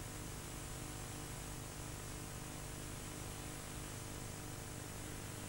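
Steady hiss with a low electrical hum beneath it and no other sound: the background noise of an old videotape recording.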